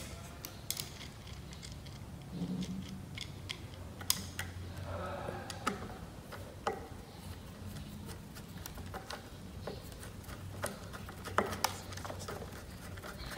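Screwdriver tightening a screw on a ceiling fan's motor bracket: scattered small metallic clicks and scrapes at irregular intervals.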